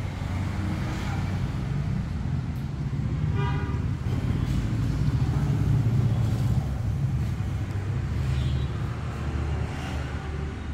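Motor vehicle engine rumbling, swelling to its loudest near the middle and easing off, with a short horn toot about three and a half seconds in.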